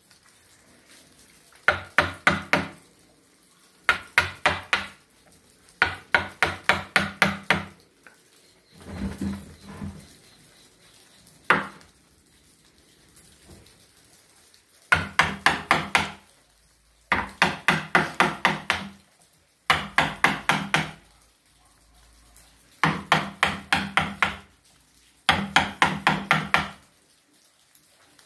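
Mallet driving a carving chisel into a slab of jackfruit wood: bursts of four to seven quick strikes, about five a second, separated by pauses of one to three seconds.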